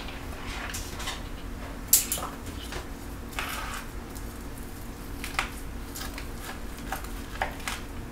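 Chef's knife and fork carving a charred spatchcocked chicken on a plastic cutting board: scattered clicks, scrapes and knocks of the blade and tines, with a sharper knock about two seconds in.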